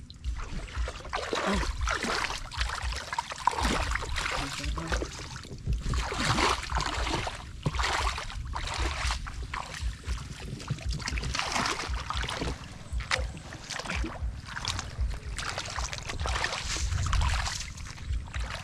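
Shallow water splashing and sloshing in repeated swells as people wade through a flooded field and work a bamboo scoop basket in it, with wind rumbling on the microphone underneath.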